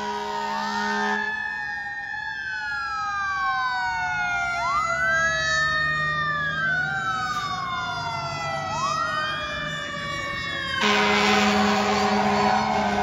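Fire engine siren wailing, its pitch sweeping up and down in repeated overlapping cycles while a second tone slowly falls. A steady air horn blast sounds briefly at the start, and a louder one comes in near the end.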